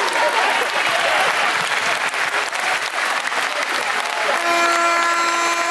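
Crowd of basketball spectators and players clapping: dense, rapid applause. About four seconds in, a steady pitched tone joins in over the clapping.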